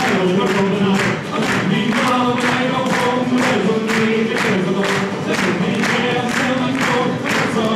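Irish folk band playing live: fiddle, strummed acoustic guitar and banjo with voices singing, over a steady beat of about three strokes a second.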